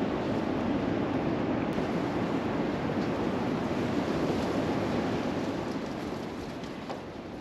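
Steady rushing background noise with no distinct events, dipping slightly near the end.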